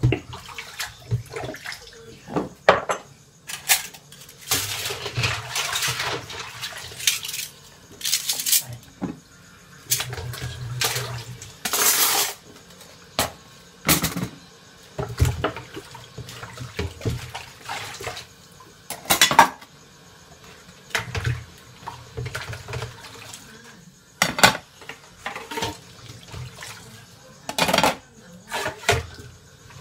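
Dishes and cutlery being washed by hand in a sink: repeated clinks and clatters of plates, cups and spoons, with water splashing.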